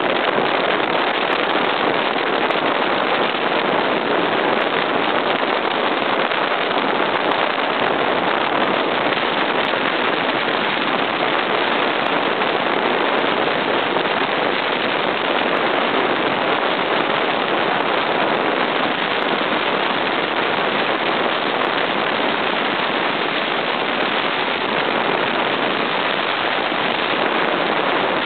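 Steady, loud rushing hiss of water spray thrown up by barefoot water skiers' feet planing on the surface beside a boat moving at speed, mixed with the boat's running noise.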